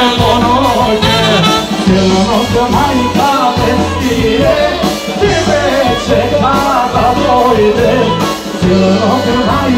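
Amplified live band playing Macedonian folk dance music, with a steady bass line and a winding, ornamented lead melody over it.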